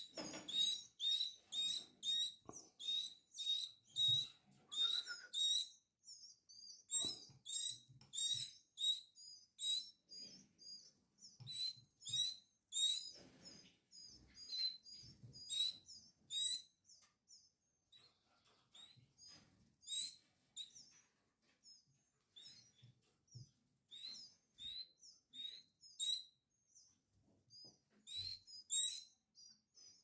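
Portuguese harlequin canary chicks cheeping to beg for food during hand feeding: rapid runs of short, high-pitched calls, several a second, with a brief lull about six seconds in and another after the middle. Faint handling sounds come in between.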